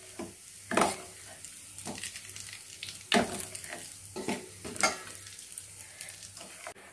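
Steel ladle stirring hot sesame oil in a stainless steel bowl, knocking and scraping against the sides about five times, over a faint sizzle of the oil frothing with black babul bark powder cooking in it.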